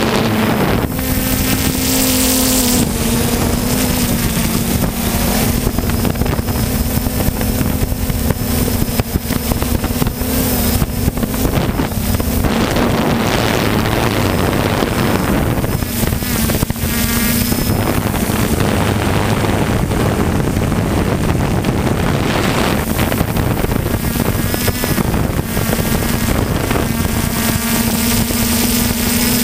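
3DR Solo quadcopter's motors and propellers buzzing steadily, heard up close from the drone's own onboard camera, with wind noise on the microphone. The hum's pitch wavers as the drone manoeuvres.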